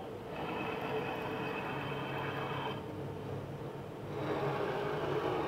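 Makera Carvera desktop CNC's axis motors driving the spindle head during an automatic tool change: a whirring move with a steady high whine for about two and a half seconds, then a second, lower whirring move starting about four seconds in whose tone rises slightly.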